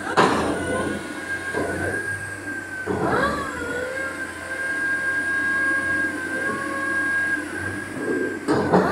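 Bauer rotary piling rig running, with a steady high-pitched whine over a low hum. There is a knock near the start, and the whine briefly bends and wavers about three seconds in.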